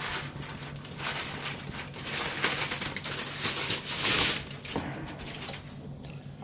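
Kitchen tin foil crinkling and rustling as it is peeled back off a roasting tin, loudest in the middle, over a low steady hum.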